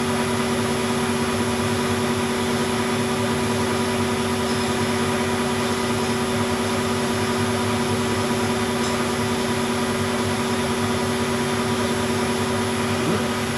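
Weiler Matador SV lathe running steadily with a constant, even hum while its spindle turns a small steel part, with a flat hand file held against the spinning work to finish the turned taper.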